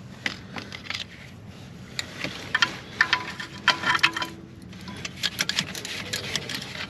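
Metal hand tools clinking and knocking against engine parts in an irregular string of sharp clicks, with a denser cluster in the middle, as a pipe is unbolted in the engine bay.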